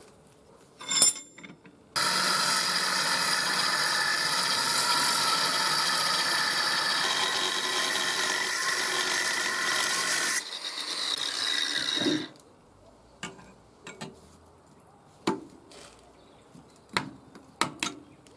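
A metal clank, then an angle grinder with a thin cut-off disc cutting through a piece of steel held in a bench vise: a loud, steady whine for about eight seconds that changes and thins for about two seconds before stopping suddenly. A few short metallic knocks and clicks follow.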